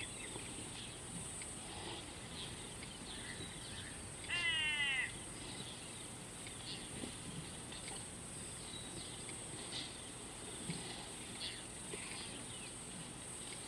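Outdoor bird chorus: many small chirps throughout, with one loud, harsh, crow-like call falling in pitch about four seconds in. A steady high-pitched hiss runs underneath.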